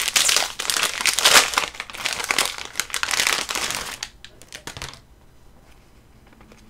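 Plastic mask wrapper crinkling steadily as it is opened and a KN95 mask pulled out of it, then a few last crackles; it stops about five seconds in.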